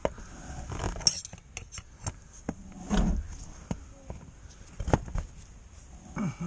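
Metal hand tools clinking and knocking: a wrench and a screwdriver handled at an engine oil drain plug under a car, with several sharp clicks, the loudest near the middle.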